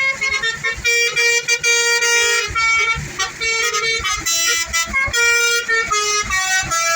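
Telolet musical bus horn playing a quick tune of short tooting notes, with a longer held note about a second in.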